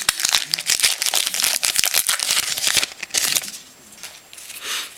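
Stiff trading cards rustling and clicking as they are slid off a pack one behind another, dense for about three seconds, then quieter with one short rustle near the end.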